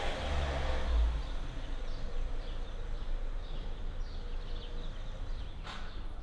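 Outdoor street ambience: a passing vehicle's rumble fades in the first second, then small birds chirp in short, repeated high calls. A single sharp click comes near the end.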